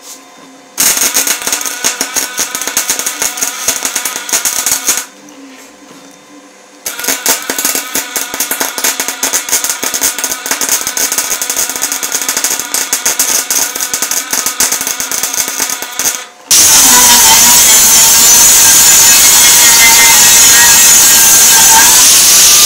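MIG welder crackling as a bead is laid on a steel saw blade, in two runs with a pause of about two seconds between them. About three-quarters of the way through, a hand grinder with a pink grinding wheel starts suddenly and runs loud and steady with a whine, grinding the weld down.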